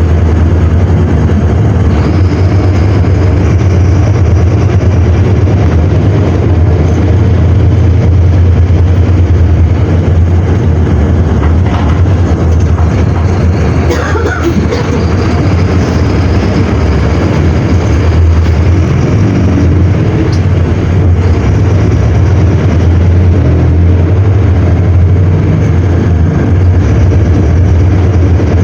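Mercedes-Benz OM-924 LA four-cylinder inline diesel engine of an OF-1721L BlueTec 5 bus running, a loud steady low drone.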